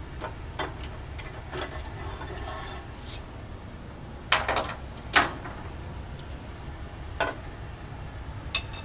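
Scattered clinks and knocks of lab glassware and a metal clamp being handled as a glass Claisen adapter is taken off its ring-stand clamp, with a louder cluster of knocks about four seconds in and a sharp knock just after five seconds, over a low room hum.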